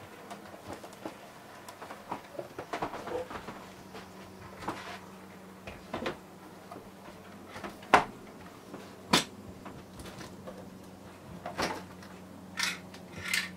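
Cardboard model-wagon packaging being opened and handled: a box lid lifted off and an inner box worked open, giving an irregular run of taps, scrapes and knocks, with two sharp knocks about 8 and 9 seconds in.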